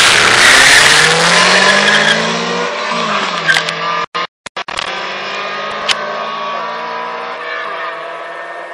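Two four-cylinder cars, a Ford Fiesta RS1800 and a Honda Civic with a 1.6 single-cam D16Z6 VTEC engine, accelerating flat out from a standing start with tyres squealing at first. Engine pitch climbs, drops at a gear change about three seconds in, climbs again and drops near the end as the cars pull away and fade. The audio briefly cuts out about four seconds in.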